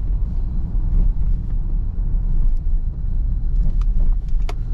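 Car road noise heard from inside the cabin: a steady low rumble of the engine and tyres on cracked, patched asphalt. A few light ticks sound near the end.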